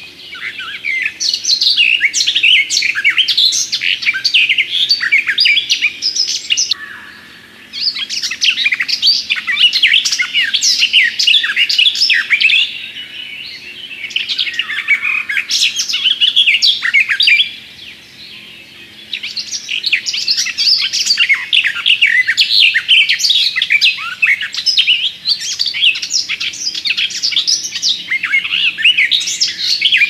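Garden warbler singing: long, fast, even-flowing warbled phrases with brief pauses between them, four phrases in all.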